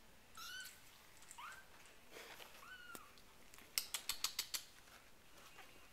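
Four-week-old RagaMuffin kittens mewing: about four short, high-pitched mews in the first three seconds. A little past the middle comes a quick run of about seven sharp clicks, the loudest sound.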